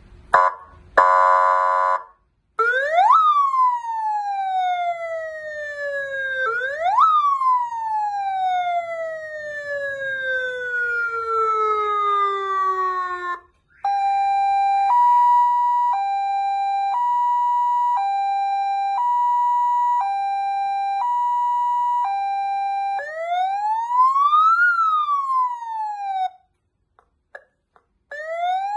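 A 100-watt electronic car siren through its horn speaker, stepping through its tones. It opens with two short buzzy horn blasts, then a wail that jumps up sharply and falls slowly, twice, then a hi-lo two-tone alternating about once a second, then a single slow rise and fall. Near the end there are a few clicks from its buttons, and another rising sweep starts.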